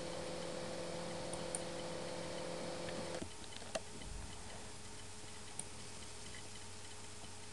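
Faint background hum made of a few steady tones, which cuts off about three seconds in and leaves a quieter hiss. A few faint, sparse clicks sound over it, one of them about four seconds in as the Insert button is clicked with a computer mouse.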